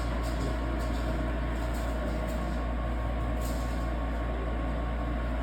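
Gas furnace running through its start-up, giving a steady low mechanical hum with a few faint steady tones and no change in level.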